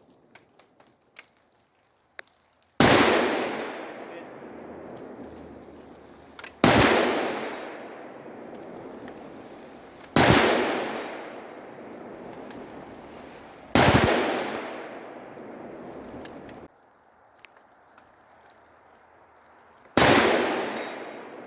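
Five rifle shots from an AR-10 in .308 fitted with a Sharp Bros Badlands muzzle brake and blast shield, about three to four seconds apart with a longer pause before the last. Each report fades away in a long echo. A few light clicks come before the first shot.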